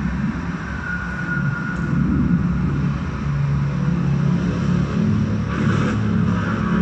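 Deep rumbling drone from an electronic show soundtrack, slowly building in level. Low held tones enter about three seconds in, and a brief whoosh comes near the end.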